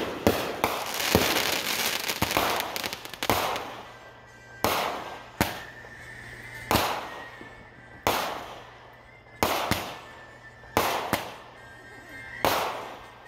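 Aerial fireworks going off in a string: about a dozen sharp bangs, roughly one every second and a half, each trailing off in an echo. A dense crackle fills the first few seconds.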